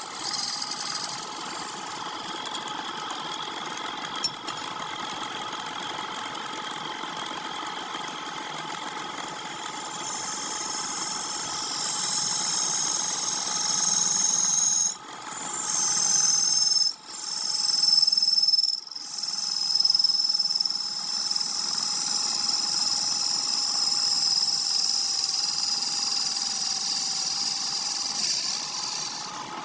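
Wood lathe running with a steady motor hum and a high hiss of the work turning, which drops out briefly a few times about midway.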